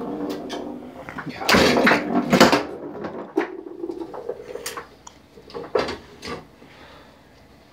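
Foosball table in play: a series of sharp knocks and clatters from the rods and plastic figures striking the ball and the wooden cabinet, the loudest about one and a half to two and a half seconds in.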